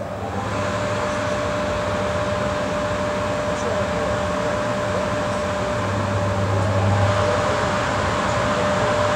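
EP1P electric locomotive's cooling blowers running: a steady rushing noise that comes up sharply at the start, with a constant high whine over it and a low hum that swells briefly about six seconds in.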